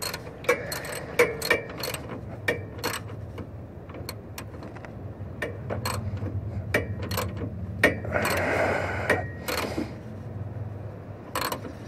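Hand ratchet clicking in short, irregular strokes as a bolt is snugged down, over a steady low hum. A brief rushing noise comes a little past eight seconds in.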